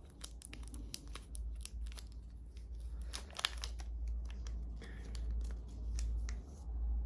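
Plastic packaging of a COVID-19 self-test kit being torn open and crinkled by hand: an irregular run of crackles and tearing sounds.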